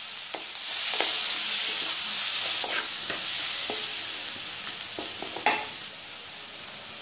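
Sliced onions sizzling in hot oil in a kadai, stirred with a wooden spatula that scrapes and knocks against the pan several times. The sizzle eases off near the end.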